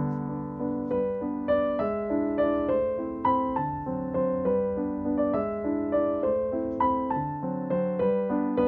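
Background piano music: a gentle melody of single notes over chords, each note struck and fading.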